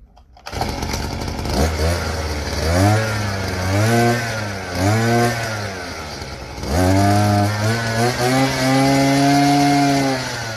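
Small pull-start petrol engine on a home-built motorised BMX catching about half a second in, then revved in three short blips and held at high revs for a few seconds before easing off near the end.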